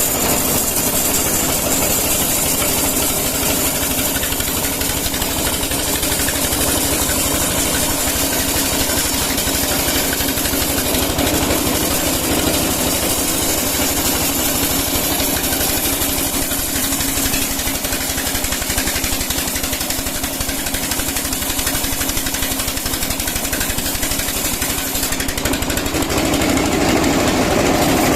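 Sawmill wood-cutting machinery running steadily, a loud mechanical noise with a fast, even pulsing; its sound changes about three seconds before the end.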